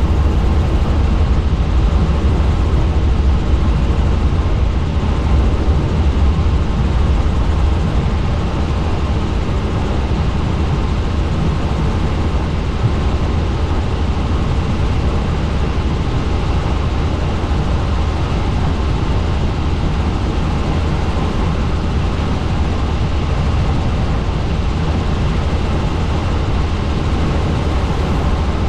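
Helicopter in flight: a steady, heavy low rumble of rotor and engine that holds level throughout.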